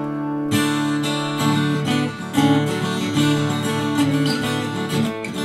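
Background music: acoustic guitar playing, a string of plucked and strummed notes and chords.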